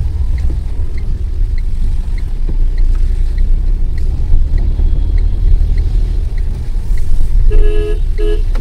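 Steady low rumble of a car's engine and tyres on a wet road, heard from inside the cabin in rain, with a light tick about twice a second. Near the end a vehicle horn sounds twice, the second blast shorter.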